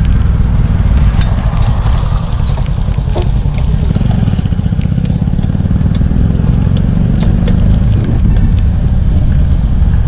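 Wind buffeting the microphone of a camera on a moving bicycle: a loud, steady low rumble, with faint scattered clicks over it.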